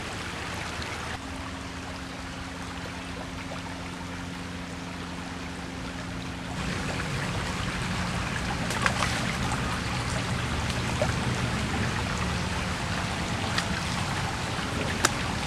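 Shallow creek water running and trickling over rocks, a steady rush that grows a little louder about halfway through. A low steady hum sits under the water in the first half and stops about halfway.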